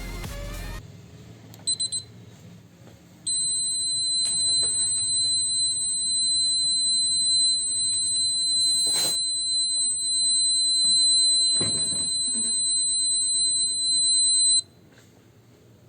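Buzzer of a homemade rain-alarm circuit. It gives a few short chirps, then sounds one steady high-pitched tone for about eleven seconds before cutting off suddenly. This is the alarm going off because water is bridging its rain sensor.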